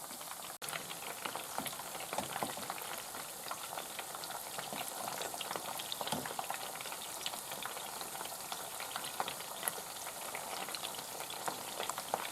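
Minced-beef meatballs shallow-frying in hot vegetable oil in a frying pan: a steady sizzle with dense, fine crackling.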